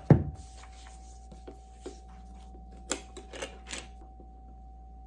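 Desk sounds during studying: a heavier knock just after the start, then scattered light clicks and taps, with a small cluster about three seconds in, over a faint steady hum.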